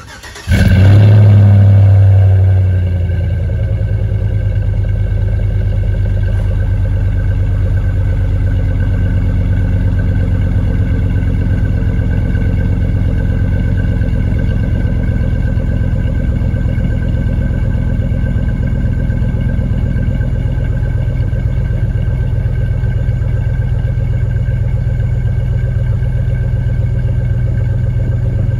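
2004 Chevrolet Tahoe Z71's V8 through an MBRP aftermarket exhaust, cold-starting at 30 degrees: it catches about a second in and flares loudest on the high start-up idle, then after about three seconds settles into a steady cold idle.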